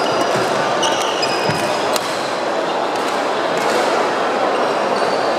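Echoing badminton hall din: sneakers squeak in short chirps on the wooden court, with a sharp racket-on-shuttlecock hit about two seconds in.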